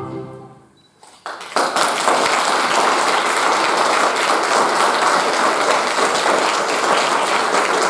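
Choral singing fades out at the start; after a brief hush, an audience starts applauding about a second and a half in and keeps clapping steadily.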